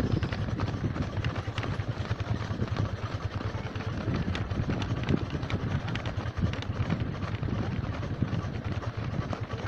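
Many runners' footfalls on a dirt road, a fast, irregular patter of steps, over the steady low running of a motor vehicle's engine moving at running pace.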